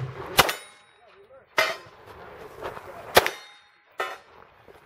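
Handgun shots fired at steel targets: four sharp reports, unevenly spaced, with the struck steel plates ringing after the hits.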